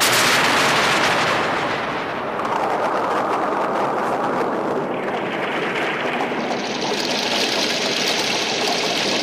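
Heavy rain falling: a steady, dense hiss with no pitched sound in it.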